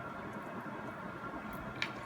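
Steady background hum of a small room, with one short sharp click near the end.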